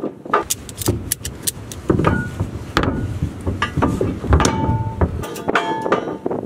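Ratchet strap's ratchet being cranked in short strokes, a run of sharp clicks, hoisting a steel gooseneck hitch plate up into place under the truck bed. A low rumble runs through the middle, and a couple of short metallic ringing tones come near the end.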